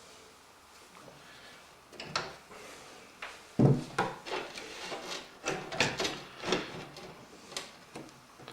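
Knocks and scraping from a power supply unit and its screws being handled and fitted into a computer case. After a quiet start comes a knock about two seconds in, then the loudest clunk at about three and a half seconds, followed by a run of smaller knocks and scrapes.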